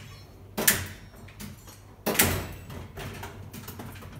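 Wires and tools being handled on a workbench: two loud clattering knocks, about half a second and two seconds in, with lighter clicks between.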